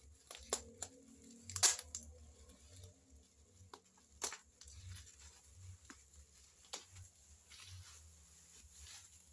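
Packing tape being peeled and ripped off a parcel, with the black plastic wrapping rustling and crinkling as it is handled and unrolled. A few short sharp rips, the loudest about a second and a half in, with softer rustling toward the end.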